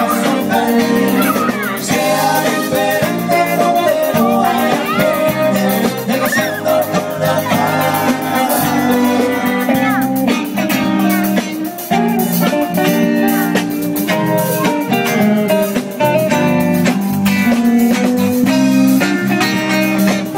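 Live rock band playing an instrumental break on electric guitars and drums. A lead guitar plays bending notes over the backing during the first half, then the band settles into steady rhythmic chords.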